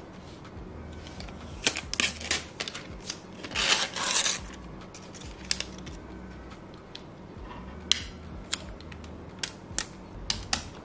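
Unboxing handling of a MacBook Pro power adapter and its packaging: irregular sharp clicks and taps of plastic and cardboard, with a paper rustle about two seconds in and a longer rustle near four seconds.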